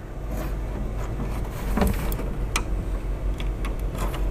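Scattered small clicks and taps of fingers handling a plastic wire connector and plugging it into a 3D printer's side-panel circuit board, over a steady low hum.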